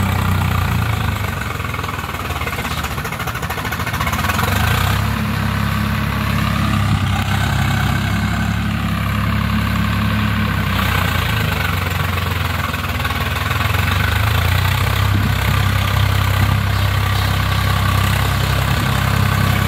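Swaraj 855 tractor's three-cylinder diesel engine running steadily under load as it pulls a rotary tiller through the soil. It grows louder in the second half as the tractor comes closer.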